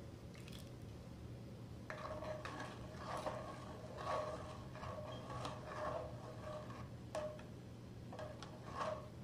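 Steel spoon stirring milk in a metal pot, scraping the pot's bottom and sides in runs of strokes that make the pot ring faintly. The scraping starts about two seconds in, breaks off near seven seconds, and comes back briefly near the end.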